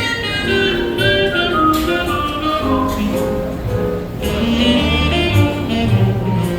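Music: an instrumental passage between sung verses of a song, a melodic lead line over steady bass notes.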